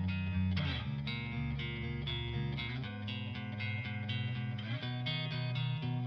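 Background music led by guitar, with sustained chords over a bass line that change about half a second in and again near five seconds.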